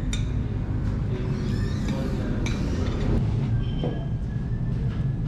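Metal spoon and ladle clinking against ceramic plates and bowls while food is served, a few sharp clinks over a steady low background rumble.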